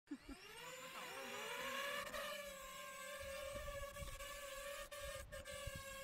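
DJI FPV drone's motors and propellers spinning up for takeoff: a whine that rises in pitch over the first two seconds as it lifts off, then holds steady as it hovers. Gusts of wind noise on the microphone sit beneath it.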